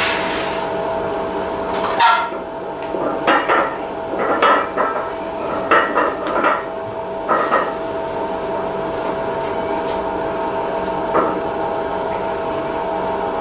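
Several sharp metallic clanks and clinks of a loaded barbell and iron weight plates, bunched in the first half and one more near the end, over a steady background hum.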